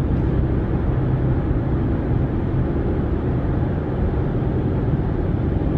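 Steady road and engine noise inside a car's cabin at highway speed, an even low rumble.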